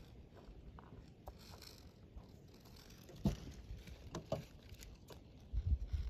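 Faint rustling with a few short, soft clicks, the loudest about three seconds in, and a low rumble near the end.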